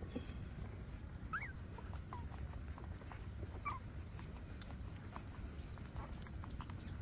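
Week-old puppies nursing from their mother: a few short, high squeaks, about a second in and again a few seconds later, among scattered soft clicking noises.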